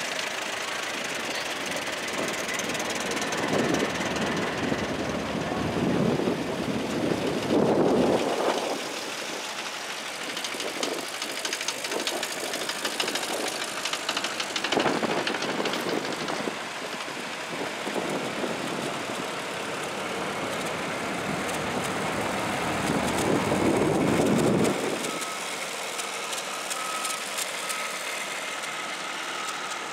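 Engines of vintage farm tractors, red Allis-Chalmers and gray Ford N-series among them, running as they drive slowly past one after another. The sound swells louder as each one goes by, most strongly about six to eight seconds in and again around twenty-three seconds.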